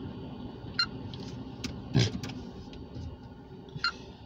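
Low steady rumble inside a car's cabin, with a few short clicks and a soft thump about two seconds in.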